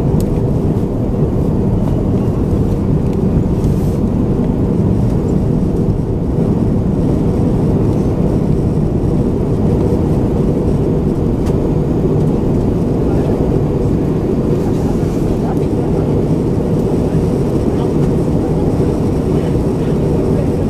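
Steady cabin roar of an Airbus A320-232 in descent, the drone of its IAE V2500 turbofan engines mixed with airflow over the fuselage, heard from a window seat behind the wing.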